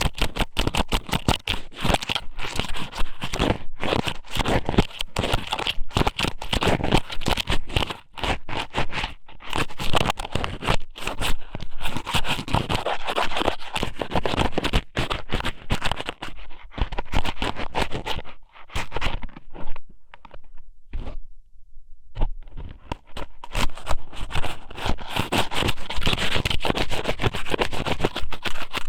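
Dried squid strips (ika somen) pushed into and rubbed around a binaural microphone's ear, making a dense, crackling scrape close to the mic, with a brief pause about two-thirds of the way through.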